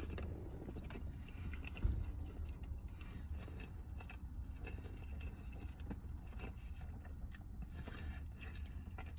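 A person chewing a mouthful of burger, a Whopper with cheese, with soft wet mouth sounds and small clicks, over a low steady hum. A single thump about two seconds in.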